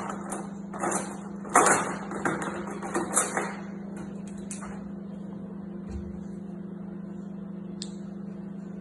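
Microwave oven running with a steady low hum while it heats. In the first few seconds, a knife and dishes clatter and knock on the counter, loudest around two to three seconds in.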